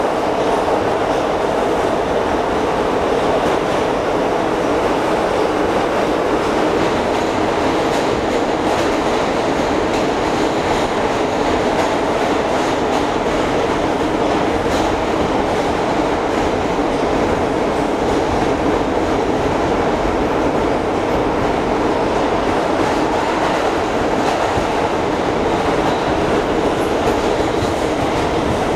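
Inside a Bombardier R179 subway car in motion: steady rumble of the wheels on the rails and running gear, with occasional faint clicks at rail joints.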